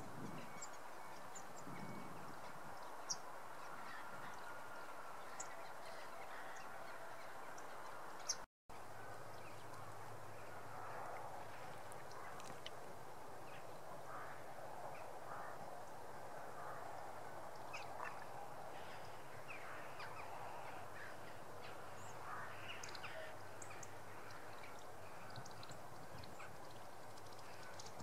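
A flock of waterfowl calling continuously, many overlapping honking calls, with a few thin, high chirps of small birds over them. The sound drops out completely for a moment about a third of the way in.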